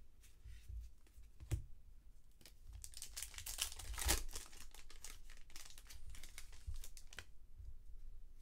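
Foil wrapper of a 2020 Bowman baseball card pack crinkling and tearing as it is opened, loudest about three to four seconds in, with a few sharp clicks of cards being handled.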